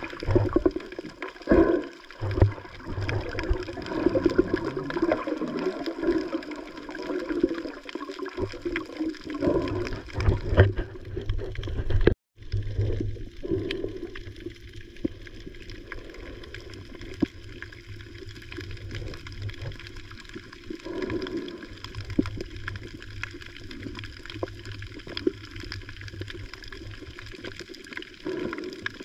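Muffled underwater sound of water moving and bubbling against a submerged camera: irregular gurgling and sloshing with a low hum. It cuts out briefly about twelve seconds in, then runs on steadier.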